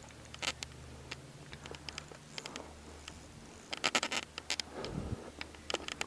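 Irregular small clicks and scratchy ticks from a fishing rod and spinning reel being handled while playing a hooked fish, in quick clusters about four seconds in and again near the end, with a soft low bump about five seconds in.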